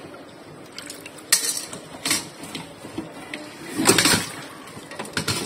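Small snail shells clinking and rattling against a metal pot as the snails are stirred and rinsed in water, with a few sharp clinks and a longer, louder rattle about four seconds in.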